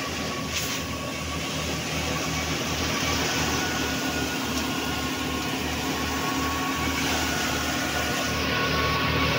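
Tractor-driven Manku paddy thresher running steadily as rice straw is fed through it. It makes a continuous mechanical drone with a low, even pulse underneath and a faint high whine, growing slightly louder near the end.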